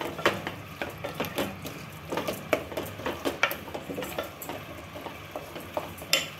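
Wooden spatula stirring mutton in a thick tomato masala in an aluminium pressure-cooker pot, scraping and knocking against the metal in an uneven rhythm, over a faint sizzle of the masala frying. One sharper knock near the end.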